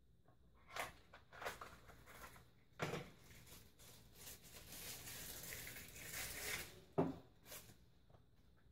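Small microscope parts handled and set down on a desktop: scattered light knocks and clicks, the sharpest about seven seconds in, with a few seconds of rustling in the middle.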